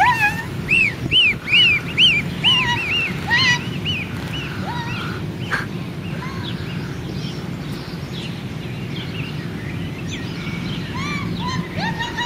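Goslings peeping: short, arching high-pitched calls, several a second for the first four seconds, then only now and then, picking up again near the end, over a steady low background noise.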